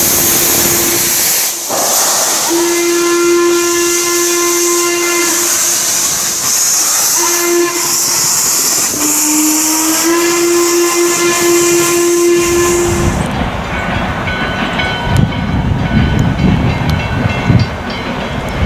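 Western Maryland Scenic Railroad 1309, a 2-6-6-2 articulated steam locomotive, blowing steam from its open cylinder cocks in a loud steady hiss while its steam whistle sounds: one blast ending about a second in, then a long blast, a short one, and another long one. About two-thirds of the way through, the hiss and whistle stop abruptly and a low, gusty rumble with a few clicks takes over.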